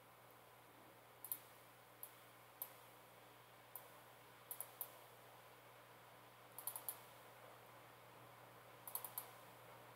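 Faint computer mouse clicks, some single and some in quick runs of two or three, scattered against near-silent room tone.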